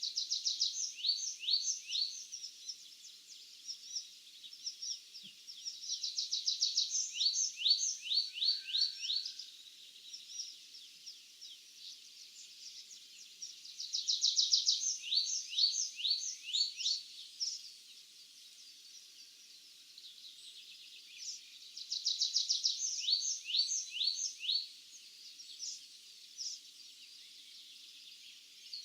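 A songbird singing the same short phrase over and over, about every seven seconds: a fast high trill followed by a run of quick, falling whistled notes.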